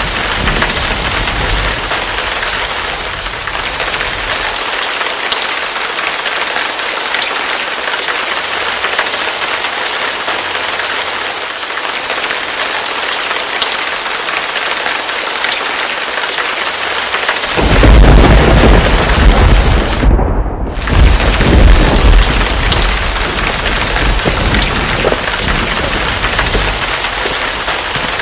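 Steady heavy rain hissing, with a loud low thunder rumble rolling in about two-thirds of the way through and carrying on to the end.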